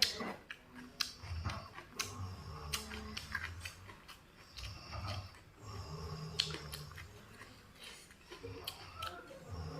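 Close-up chewing and crunching of raw vegetables, with repeated crisp bites and mouth sounds.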